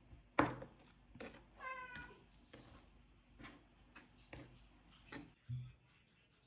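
Knife chopping raw salmon on a plastic cutting board, a sharp knock about once a second. A cat meows once, briefly, about one and a half seconds in, begging for the fish, and there is a low thump near the end.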